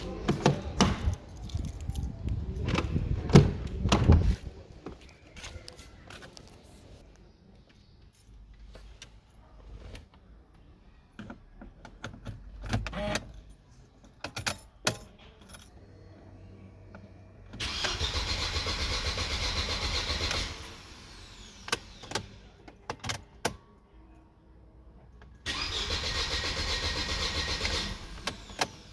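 Mercedes-Benz W203 C200's starter cranking the engine twice, about three seconds each time, without it catching: a crank-but-no-start that is put down to a bad fuel pump or fuel pump relay. Before that come knocks and handling noises, and scattered clicks.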